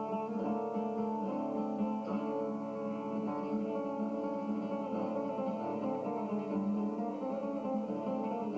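Acoustic guitar played with plucked strings in a continuous stream of quick notes over a steady low bass line.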